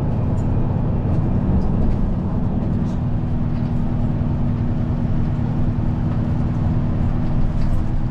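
Steady low drone of a bus in motion, heard from inside the cabin, with a constant engine hum.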